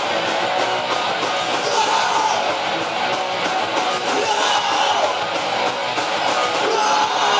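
Live rock band playing loud, with electric guitars, a drum kit and a singer shouting into the microphone.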